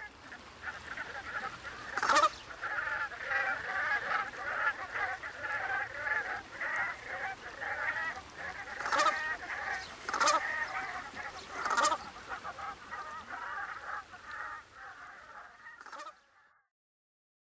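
A flock of brant geese calling, many overlapping calls in a continuous chorus, with four sudden sharp sounds standing out. The calling cuts off abruptly near the end.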